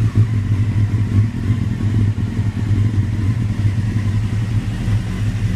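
Ford F-series truck engine settled at a rough idle, its low hum wavering unevenly in loudness.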